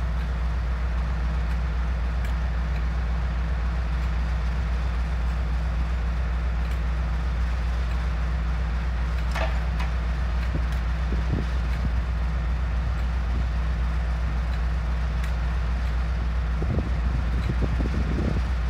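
Class 56 diesel locomotive's Ruston-Paxman V16 engine running steadily at low revs, a constant deep drone. A brief higher squeal comes about nine seconds in, and a few short low bumps near the end.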